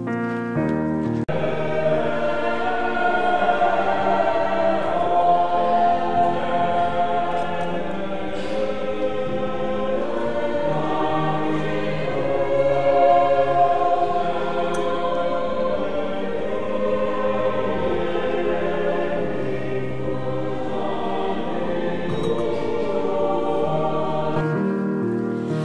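Church choir singing the offertory music of a Mass. It comes in suddenly about a second in and stops just before the end.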